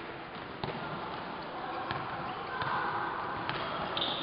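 Basketball bouncing on a wooden gym court: a few sharp bounces, irregularly spaced, over a background of players' voices.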